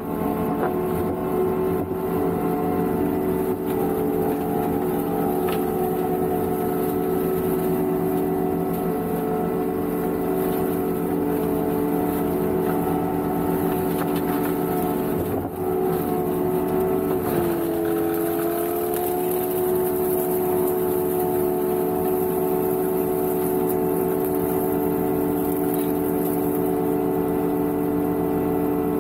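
Energreen ILF S1500 self-propelled boom mower working: its engine and the flail mower head on the arm run with a steady drone while the flail cuts dry roadside brush. The pitch dips briefly a little after halfway and settles slightly lower.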